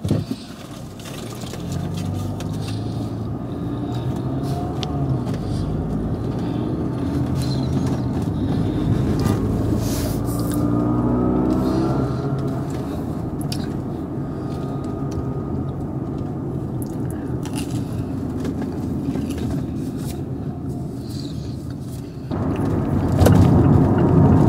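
Car engine and road noise heard from inside the cabin while driving, the engine's pitch rising as the car speeds up about ten seconds in. The noise grows louder near the end.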